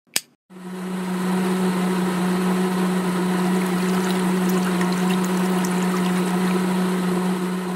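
A click, then a miniature electric water pump starts about half a second in and hums steadily while watermelon juice pours from a spout into a glass.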